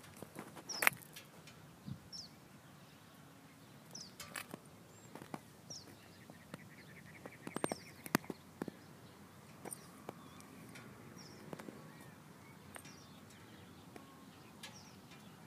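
A small bird chirping outdoors: short, high, falling notes about every two seconds. Scattered sharp clicks and light crunches come from walking with the camera, the loudest a click about a second in.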